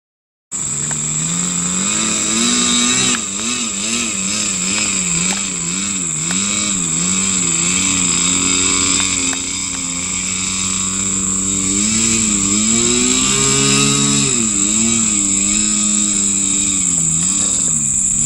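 RC model airplane's engine running, cutting in suddenly about half a second in. It has a steady high whine over a lower tone that keeps wavering up and down in pitch.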